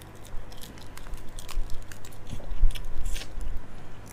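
Crunching and chewing of a giant water bug eaten by hand, its shell crackling in sharp little cracks, with the loudest crunch about three seconds in.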